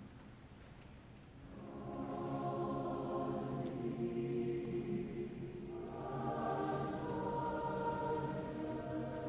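Choir singing slow, sustained chords. The singing is soft at first, then swells in about a second and a half in, and higher voices join about six seconds in.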